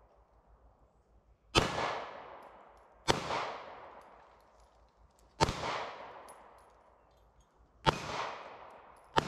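Five 9mm shots from a Walther PDP F pistol in slow aimed fire, spaced one and a half to two and a half seconds apart, each crack echoing away. The first comes about a second and a half in and the last just at the end.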